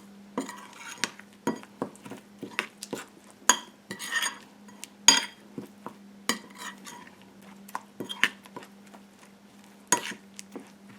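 Spoon mixing curry paste of ground spices, garlic and water in a bowl, clinking and knocking against the bowl at an uneven pace, with short scraping stirs between the knocks. A steady low hum runs underneath.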